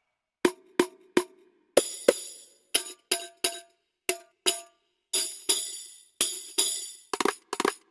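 Sampled Anatolian hand percussion, a jingled frame drum of the tambourine kind, played as separate single and paired hits. Some hits carry a long jingle ring and some are short and dry, with a quick flurry of hits near the end.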